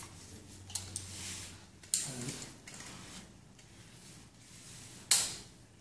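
Clicks and knocks of a tripod's legs being unclipped from a camera dolly and handled, with the sharpest knock about five seconds in.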